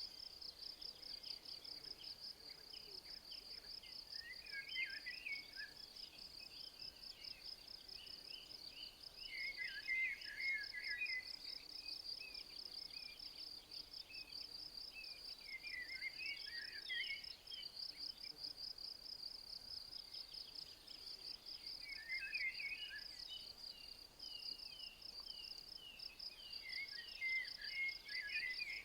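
An insect trilling steadily in rapid, even pulses at a high pitch, while a songbird sings a short phrase about every five to six seconds.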